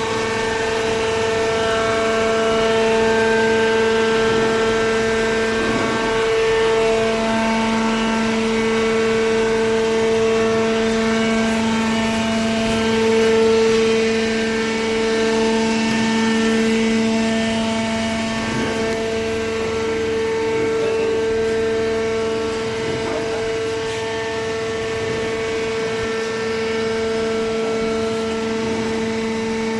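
Hydraulic baler's electric motor and pump running: a steady whine, with a lower hum growing stronger about six seconds in.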